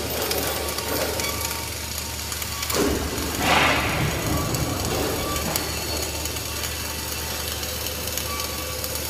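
Industrial work noise: a steady low machine hum under a crackling hiss, with a louder rushing burst about three seconds in.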